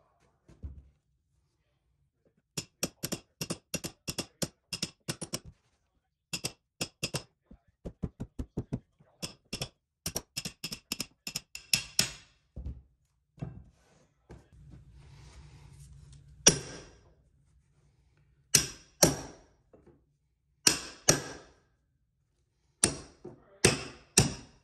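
Staple gun driving staples into a carpet stair runner: sharp metallic clacks, first in quick runs of about four or five a second, then louder single and paired strikes further apart in the second half.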